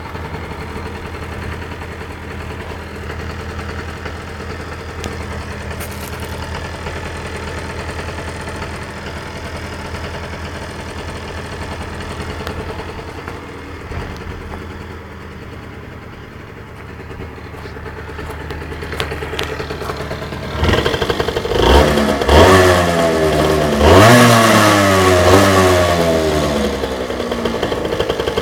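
Aprilia Tuono 50's two-stroke single-cylinder engine idling steadily through its exhaust, then revved several times from about twenty seconds in, each rev climbing quickly in pitch and falling back, the hardest near the end before it settles toward idle.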